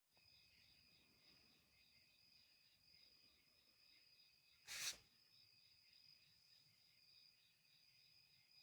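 Faint steady chorus of night insects, with several high trilling tones and one of them pulsing evenly. About halfway through, a single short, loud rustling bump cuts across it.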